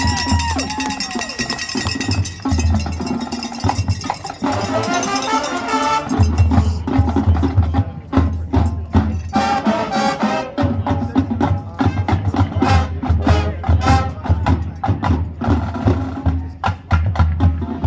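Show music for a competition performance, driven by percussion: repeated heavy low drum hits and many sharp clicks under a melodic pitched line.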